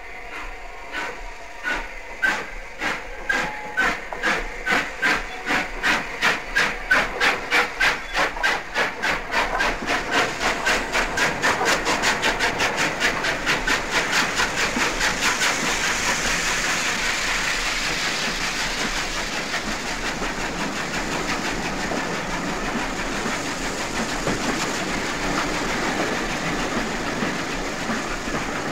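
'Lord Nelson' class 4-6-0 steam locomotive No. 30857, a four-cylinder engine, pulling away with a passenger train. Its sharp exhaust beats start about a second apart and quicken steadily. About halfway through they merge into a continuous rushing exhaust as the train gathers speed.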